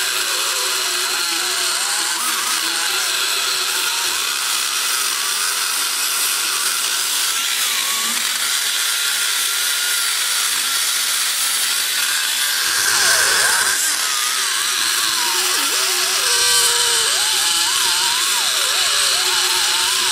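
Die grinder with an aluminum cutter running continuously, cutting excess poured aluminum filler out of the exhaust port of a cast-iron big-block Chevy cylinder head. Its whine wavers up and down in pitch as the cutter works.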